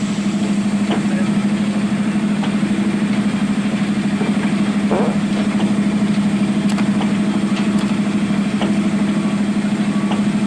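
Zoomlion ZE215E excavator's diesel engine running steadily with an even, low hum, with a few faint clicks and knocks over it.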